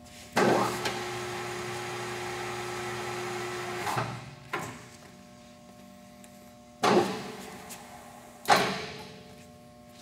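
Microweily TY-1640S 16 x 40 lathe's spindle motor and headstock gearing starting with a sharp onset, running steadily for about three and a half seconds, then winding down. Three shorter bursts follow, the last two louder, each starting sharply and dying away within about a second, like the spindle being jogged and braked.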